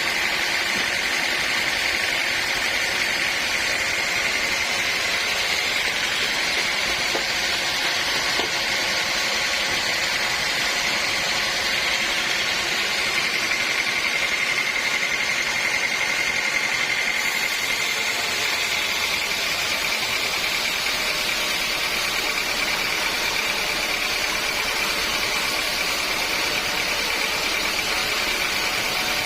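Sawmill saw running steadily, a constant machine noise with a high whine held throughout that edges slightly higher about halfway through.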